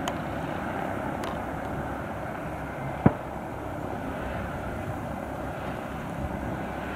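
Steady jet engine noise from an Airbus A320-232, whose engines are IAE V2500s, as it rolls out on the runway after landing. There is a single sharp click about three seconds in.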